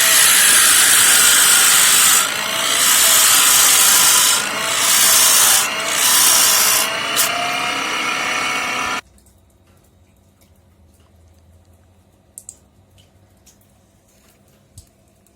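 A hand gouge cutting into an oak blank spinning on a homemade wood lathe: a loud, rough hiss of shavings tearing off, broken by a few brief pauses where the tool lifts, with a faint wavering hum underneath. It cuts off suddenly about nine seconds in, leaving low background with a few light clicks.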